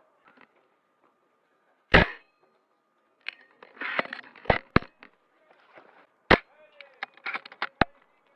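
Airsoft guns firing: five sharp snaps spread over the stretch, two of them close together about halfway through, the first with a short echoing tail.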